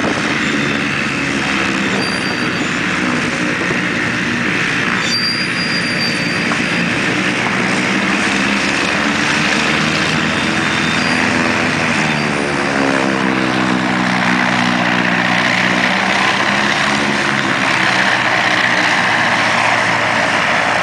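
Antonov An-2's nine-cylinder radial engine and propeller running steadily as the biplane taxis on the grass; about twelve seconds in the engine note wavers and shifts in pitch, then settles, growing slightly louder near the end.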